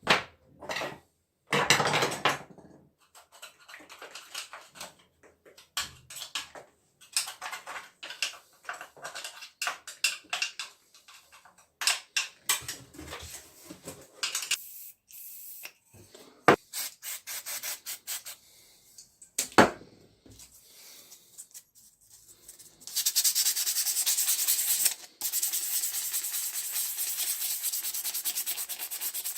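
Hand rubbing and scraping on Husqvarna 61 chainsaw parts during cleaning, in irregular short strokes with a few sharp knocks. About two-thirds of the way in it changes to steady, fast, continuous rubbing strokes.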